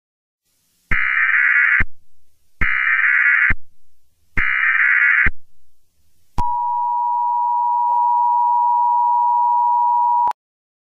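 Emergency Alert System tones: three one-second bursts of buzzing digital SAME header data, then the two-tone EAS attention signal, a steady dual tone held about four seconds and cut off sharply. These are the coded header and alarm tone that open a new emergency alert.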